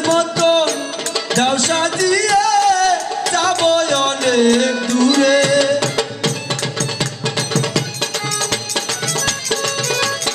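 Bengali folk song: a man sings a long, wavering melodic line over instrumental accompaniment. His voice stops about halfway, and the accompaniment plays on with fast, steady percussion.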